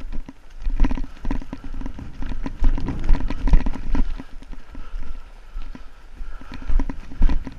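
Quick, uneven footsteps through heather and dry moor grass, with the vegetation rustling against boots and clothing.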